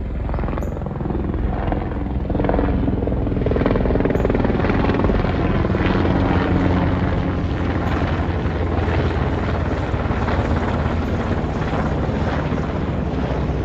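Helicopter flying low overhead, its rotor chop and engine loud and steady, growing louder over the first few seconds.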